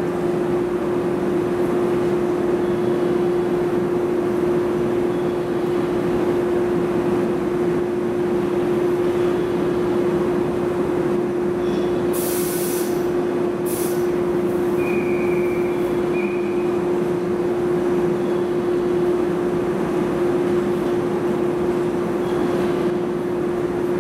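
A 413 series electric train stands at the platform with a steady hum over a background rumble. About halfway through, two short hisses of released air come in quick succession, followed by a brief high two-part beep.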